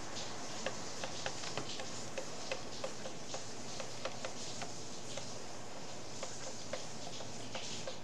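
Pen stylus tapping and clicking on a tablet screen while handwriting: light, irregular ticks, a few a second, over a steady hiss.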